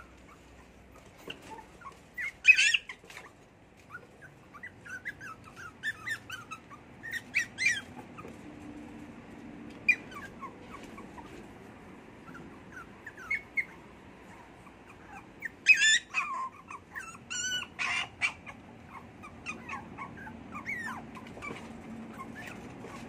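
Poodle puppies whimpering and yipping in short, high-pitched calls scattered through the stretch, loudest a couple of seconds in and again about two-thirds of the way through.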